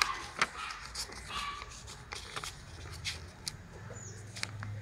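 Sheet of A4 paper rustling and crinkling as it is folded and creased by hand against a tabletop, in scattered short crackles and taps.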